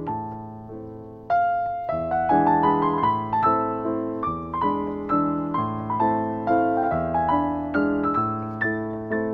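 Background piano music: a gentle melody of struck notes, growing louder about a second in.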